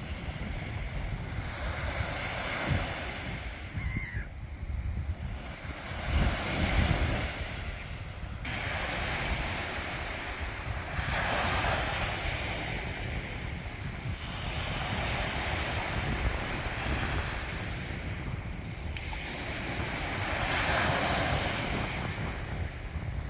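Surf washing onto a beach, the noise swelling every few seconds as waves break, with wind buffeting the microphone.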